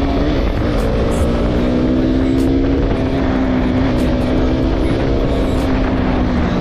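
KTM RC 200's single-cylinder four-stroke engine running at steady cruising revs under the rider, with a brief dip in pitch just after the start, over the rush of wind and road noise.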